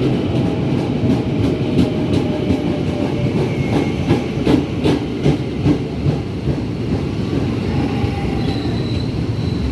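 KRL commuter electric train running on the track with a steady rumble. In the middle comes a run of wheel clacks over the rail joints.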